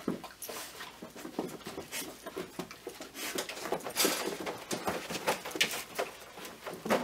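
A dog and a person moving about on carpet: irregular soft patters, light knocks and rustles, with a denser cluster about three to four seconds in.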